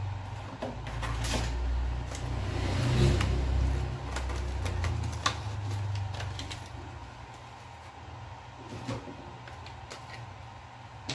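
Scattered clicks and light knocks of small parts being handled while a hard drive is fitted into a laptop HDD caddy, over a low rumble that fades out about two-thirds of the way in.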